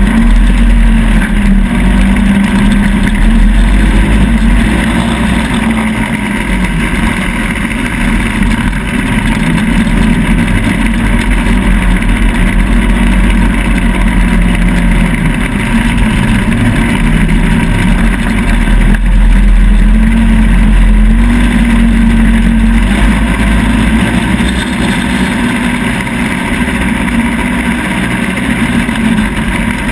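ATV engine running under load while riding over sand, its pitch rising and falling with the throttle, and climbing higher for a few seconds about two-thirds of the way through. Wind rushes over the mount-mounted camera's microphone throughout.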